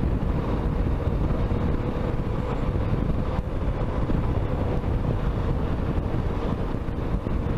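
Yamaha XTZ 250 Ténéré's single-cylinder engine running steadily while riding, with wind rushing over the microphone.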